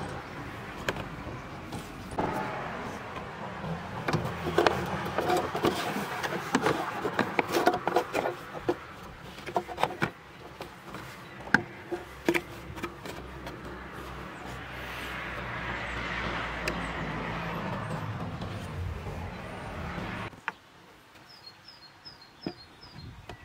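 An Audi A8 D3's plastic air-filter housing and its cylindrical filter being worked by hand: irregular knocks, clicks and rattles over a steady background noise. The sound drops off suddenly about twenty seconds in, leaving a few faint high chirps.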